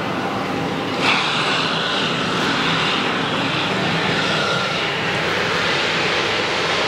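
Airbus A321 jet engine starting up: a steady rushing hiss, with a sudden sharp jump in loudness about a second in and a faint whine climbing in pitch toward the end.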